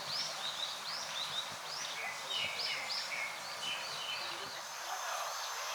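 Small birds chirping: a continuous run of short, arched high notes, several a second, over a steady outdoor hiss.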